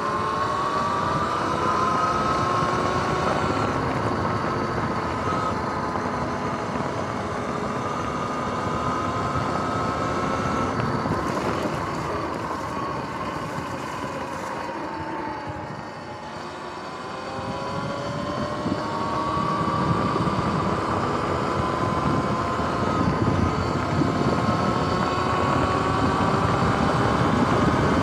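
Sur-Ron X electric dirt bike's motor whine rising in pitch as it speeds up, over a steady rush of wind and tyre noise. Around the middle it drops away as the bike slows, then climbs again as it accelerates.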